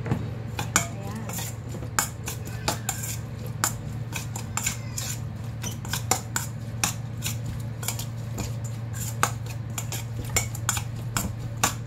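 A metal spoon clinking and scraping against a stainless steel mixing bowl while stirring a marinade, in many quick, irregular knocks. A steady low hum runs underneath.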